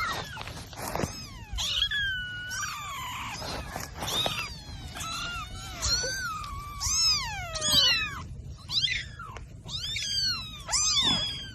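Cats meowing over and over: high mews that rise and fall in pitch, several of them overlapping at times.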